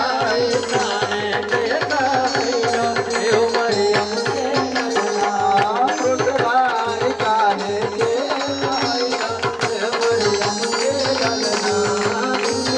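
Instrumental break in a Hindi devotional worship song: a hand drum keeps a steady quick beat under a keyboard melody, with hand-clapping from the congregation.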